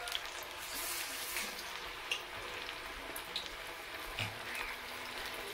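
Bottle gourd vadas deep-frying in a kadai of hot oil: a steady sizzle with scattered crackling pops.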